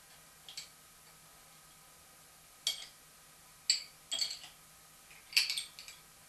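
An open-end steel spanner and other metal parts clinking against the milling machine's iron table and tailstock: about five separate sharp metallic clinks, the loudest a little past the middle and near the end.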